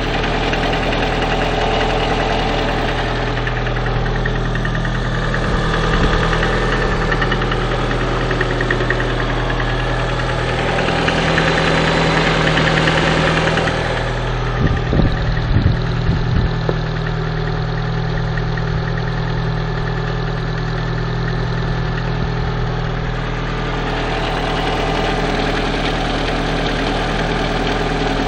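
Lada Priora's 1.6-litre 16-valve VAZ-21126 four-cylinder engine idling cold, with a knock that the owner takes for piston knock. A few louder thumps come about halfway through.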